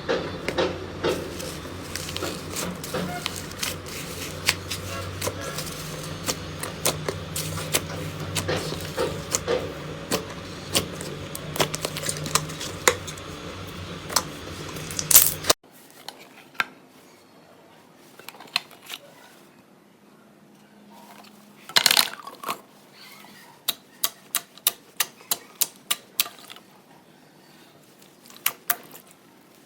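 Slime being squeezed and poked by hand, with a dense stream of small sharp crackles and clicks. About halfway through the sound cuts to a quieter clip, where the clicks come sparser, with a quick even run of them near the end.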